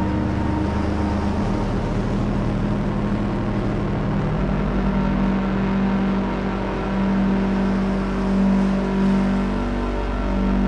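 Background music: a sustained low drone of held notes, with the bass changing pitch about one and a half and four seconds in.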